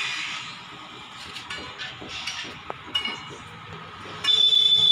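Faint background with a few light clinks, then near the end a loud, steady, high-pitched tone comes in suddenly and holds.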